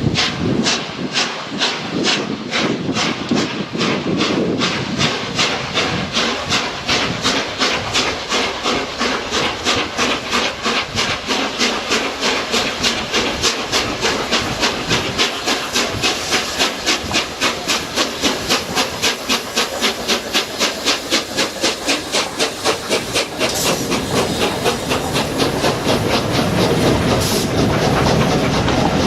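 Peppercorn A1 steam locomotive 60163 Tornado's three-cylinder exhaust beats and steam hiss as it pulls away, the beats quickening steadily as it gathers speed. In the last few seconds the beats merge into a steadier noise as the train rolls past.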